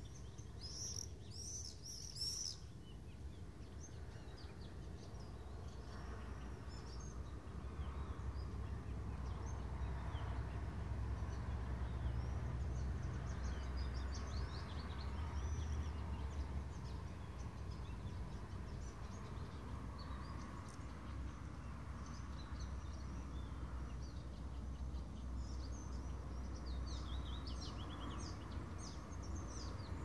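Several songbirds chirping and trilling in many overlapping voices, with a quick flurry of high notes about a second in and a busier stretch near the end, over a steady low rumble of distant city noise.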